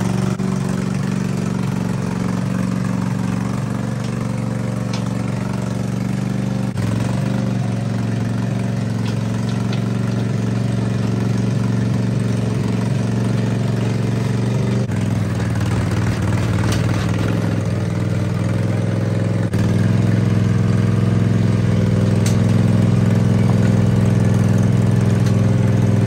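Zero-turn lawnmower's engine running steadily as the mower drives along under load, its note shifting abruptly a few times.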